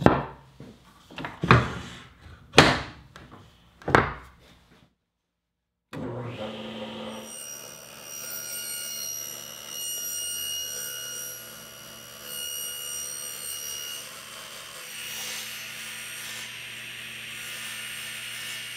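A few sharp knocks as the plywood insert is seated in the table saw, then after a brief break the table saw motor starts running with a steady hum and whine. Its spinning blade is raised up through the Baltic birch plywood zero-clearance insert, with the rising, falling noise of the blade cutting its own slot.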